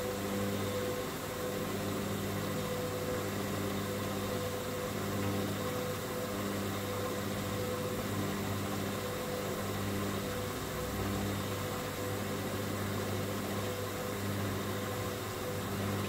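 Hoover front-loading washing machine turning a heavily foamed load at low drum speed, its motor giving a steady hum with a tone that pulses on and off about once a second. Sudslock is holding back the spin because there are too many suds in the drum.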